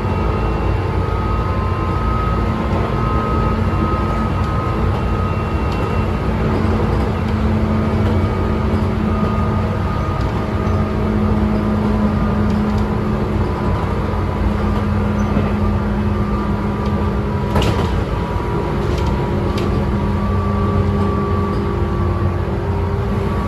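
Tobu 9000 series electric train running at steady speed, heard from inside the motor car: a continuous rumble of wheels on rail with steady whining tones from its chopper-controlled traction equipment. A couple of sharp clicks come about 18 seconds in.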